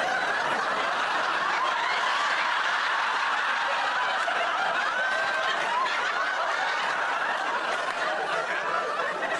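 Sitcom studio audience laughing: one long laugh from many people.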